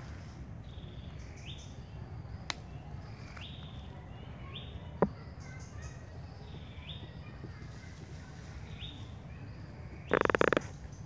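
Forest ambience with a bird calling over and over, a short rising note about once a second, over a low steady rumble. Two sharp clicks come about 2.5 and 5 seconds in, and near the end a louder buzzy sound lasts about half a second.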